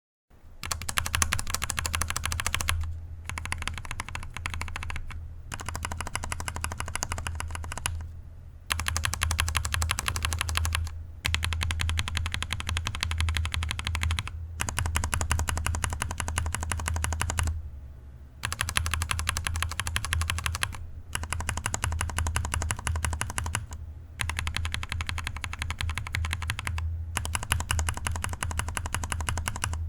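Mechanical keyboard switches being typed on quickly, in runs of rapid key clacks broken by short pauses, over a steady low hum. It is a sound test comparing unlubed switches, switches lubed through the keycap gap without desoldering, and switches properly lubed with Krytox 205G0.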